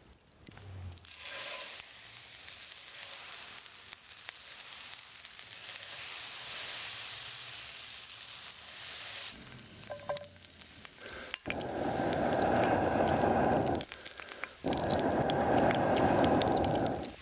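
Food sizzling on a hot stone over a fire: a steady high sizzle for most of the first half, then two louder stretches of sizzling, each a couple of seconds long, in the second half.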